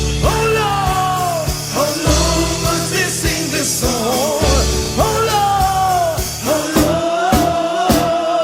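Music with a lead vocal: a singer's gliding melody over bass and a steady drum beat.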